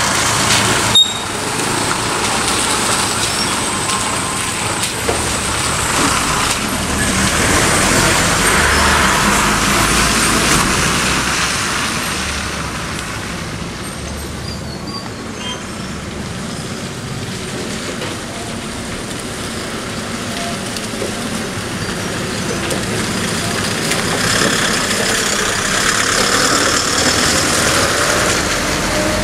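A bus and then a heavy truck passing over a wet, potholed road: engines running and tyres hissing through water, the sound swelling as each vehicle goes by. There is one sharp click about a second in.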